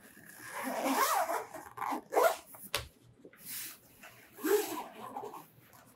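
The long zipper of a soft recurve bow case being unzipped in a series of short pulls, about five strokes, with a sharp click about halfway through.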